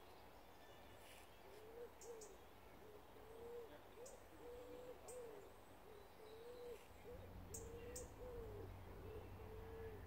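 Pigeon cooing: a long run of short, soft, low coos, one to two a second, some rising and falling, some held flat.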